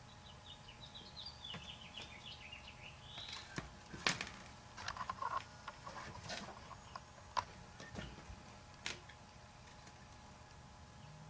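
Faint scattered clicks and taps of small plastic transistors and wire leads being pushed into a perfboard by hand, the sharpest click about four seconds in. A few faint high chirps in the first three seconds.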